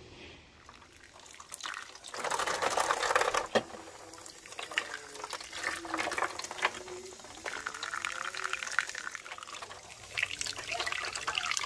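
Kitchen tap running into a stainless steel sink, the water splashing over squash blossoms and leaves as they are rinsed by hand in a foil tray. It starts about two seconds in and is loudest just after.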